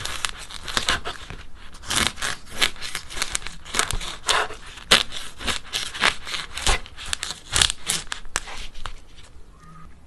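Clay cracking, a dense run of crisp crackles and snaps that thins out and goes quieter about nine seconds in.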